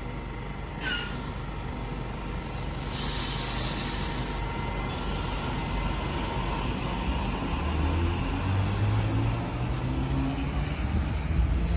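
Sydney Trains Waratah electric train at the platform. A brief sharp sound about a second in is followed by a hiss of air from about three to five seconds. From about eight seconds a low hum rises slightly in pitch.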